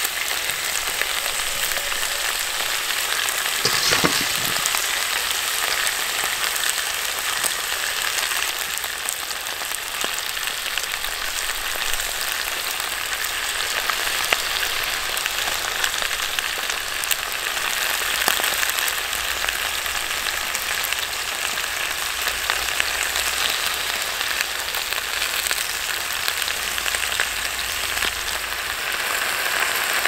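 Meat, potatoes and vegetables frying in oil in a cast-iron cauldron: a steady sizzle with fine crackling. One knock rings out about four seconds in.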